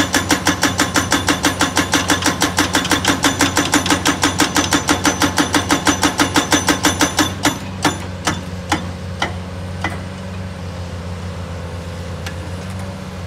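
Hydraulic rock breaker on a Cat 336D excavator hammering hard rock with rapid, evenly spaced blows, about five a second, stopping about seven seconds in. A few single blows follow, then only the excavator's diesel engine running steadily.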